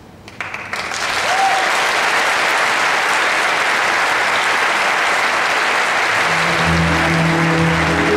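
Large crowd applauding, the clapping building up in the first second and holding steady. About six and a half seconds in, music starts up under the applause.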